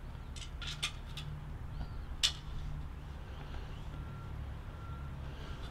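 Sharp metallic clicks as a green nozzle tip is handled and snapped into the brass quick-connect coupler of a pressure washer spray wand: a cluster of clicks early on, then one loud click a little after two seconds in. Under it runs a steady low rumble, and faint short beeps repeat near the end.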